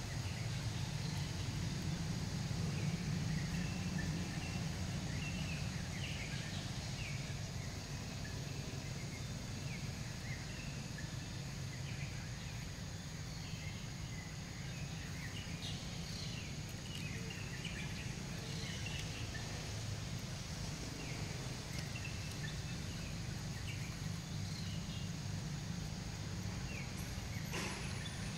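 Outdoor ambience: a steady low rumble with many short, high chirps scattered throughout, and one sharp click near the end.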